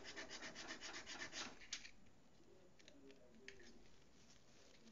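Quick back-and-forth rubbing on a plastic drone propeller blade, about eight strokes a second, as it is wiped clean after sanding. The rubbing stops about two seconds in, leaving a few faint handling clicks.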